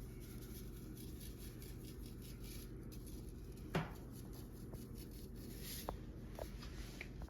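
Quiet room tone: a steady low hum with faint scattered clicks and taps, and one sharper click a little under four seconds in.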